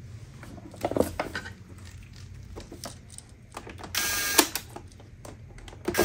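Clicks and knocks of plastic parts being handled as the battery cover goes back onto an iRobot Roomba and is screwed down, with a short harsh rasp about four seconds in.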